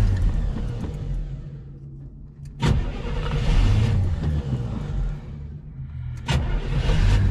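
Carbureted Corvette V8 running unevenly, heard from inside the cabin. It sags about two seconds in, then surges up sharply twice, about two and a half and six seconds in. The owner takes the stumbling for the engine not picking up fuel.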